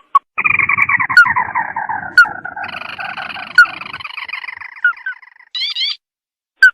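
Tikusan (crake) lure call: a long, falling, rattling trill starting about half a second in, overlapped by a second, higher trill, then a quick group of sharp rising notes near the end.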